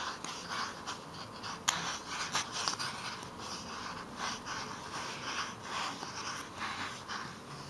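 Wool yarn being wound around a square of cardboard, each turn rubbing over the card's edges in repeated soft scratchy rustles, about two a second, with one sharp click about a second and a half in.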